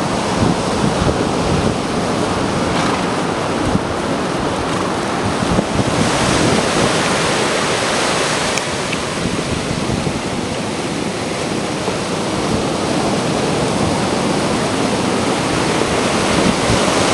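Ocean surf breaking and washing up the sand in a steady loud rush, with wind on the microphone.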